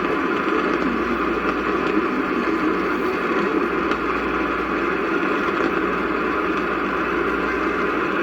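Steady radio static hiss from a receiver tuned to a weak station, an even noise without tones or speech.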